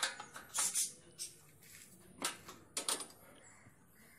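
Spanner clinking on the 17 mm nut of a Royal Enfield Bullet's rear silencer mount at the footrest bolt as the nut is tightened: several sharp metallic clicks at irregular intervals.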